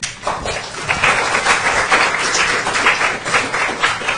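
Audience applauding, building up over the first second and then steady.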